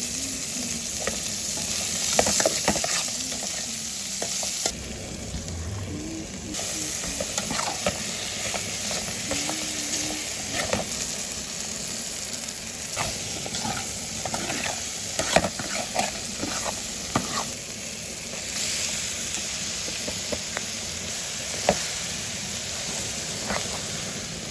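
Food sizzling as it fries in a pan, with a utensil scraping and tapping against the pan at irregular moments.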